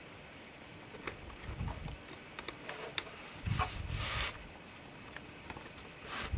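Handling noises from working on a laptop by hand: scattered small clicks, one sharp click about three seconds in, and brief scraping rustles with soft thumps.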